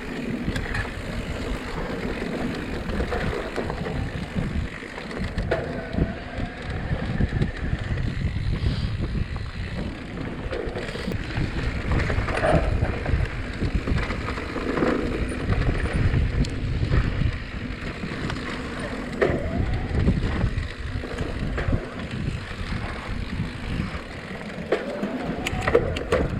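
Mountain bike being ridden on a dirt trail: tyres on dirt and rock with a steady rough rumble, and irregular small clicks and rattles from the bike over bumps. Wind rumbles on the microphone.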